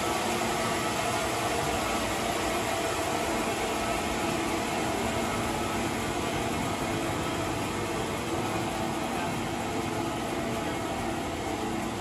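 Sawmill machinery running steadily: an even hiss with a faint, constant hum that does not change.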